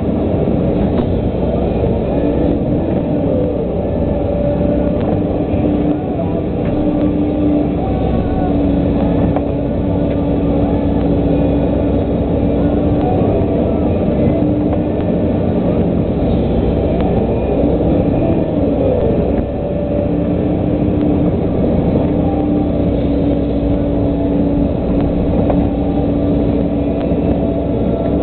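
Volvo EC140 LC tracked excavator's diesel engine running steadily under working load as it swings and loads peat, heard from inside the cab. A steady whine rides on top of the engine and drops out briefly a few times.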